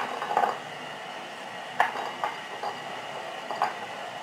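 Peeled garlic cloves dropped by hand into glass jars of chopped dill: a few short, light clicks and taps of cloves against the glass.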